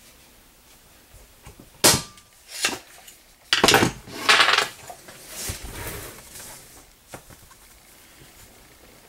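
Small plastic one-handed bar clamps being released from a glued leather disc with sharp clicks and set down on a workbench with a clatter, the loudest knocks about two seconds and three and a half to four and a half seconds in. Softer rustling of the leather being handled follows.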